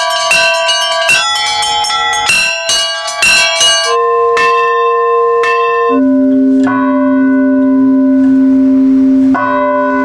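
Orthodox church bells rung by hand with ropes: quick strokes on the small chime bells, about three a second, for the first four seconds. Then slower strokes of larger bells, with the deep big bell struck about six seconds in and again near the end, each left ringing on.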